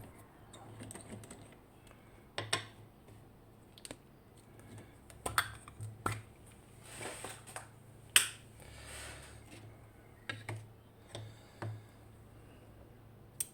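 Scattered small metal clicks and knocks from lock picks and a slider lock being handled, with one sharp click about eight seconds in, as the IMILock's core is turned back to the locked position.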